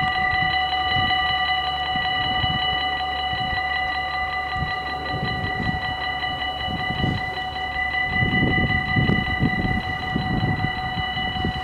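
Electronic warning bells of a Dutch automatic half-barrier level crossing (Mini-AHOB) ringing in a rapid, steady, multi-tone pattern, warning that a train is approaching while the barriers come down. An irregular low rumble runs underneath.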